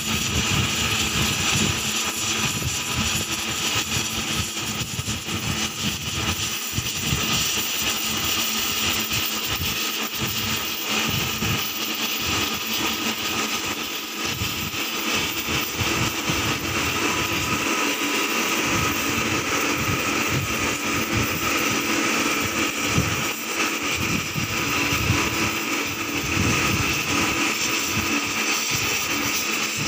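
Oxy-acetylene torch flame running steadily as it heats a ship propeller blade for repair: a constant hiss with an uneven low rumble under it.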